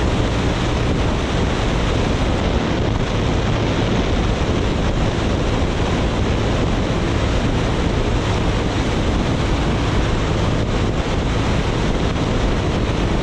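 Heavy wind noise on the microphone from riding a BMW R nineT motorcycle at road speed, with the bike's boxer-twin engine running steadily underneath.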